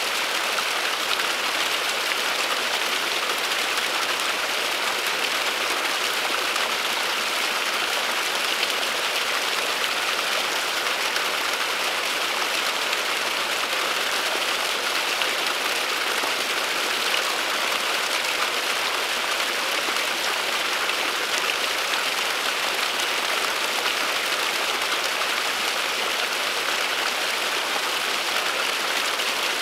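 Small waterfall, a thin stream of water spilling down a mossy bank and splashing steadily in an even hiss.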